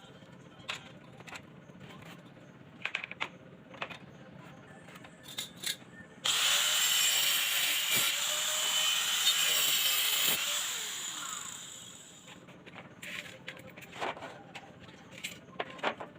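Handheld power tool running at full speed for about four seconds, starting abruptly about six seconds in, then winding down, with scattered knocks and clicks of handling wood and tools before and after.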